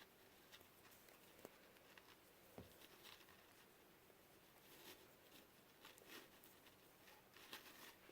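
Near silence with faint, scattered rustles and a few light ticks of yarn being handled.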